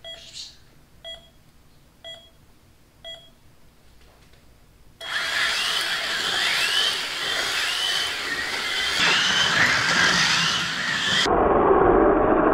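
Race-start countdown beeping four times about a second apart. About five seconds in, 1/43-scale rally slot cars take off, their small electric motors whining up and down with the throttle.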